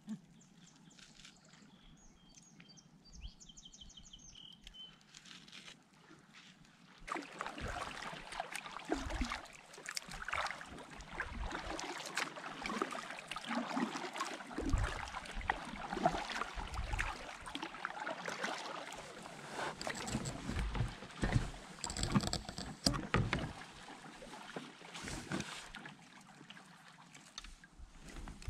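A kayak being paddled: paddle strokes splashing and dripping, with clicks and occasional low thumps against the plastic hull. These start about seven seconds in, after a quieter stretch with a few high chirps.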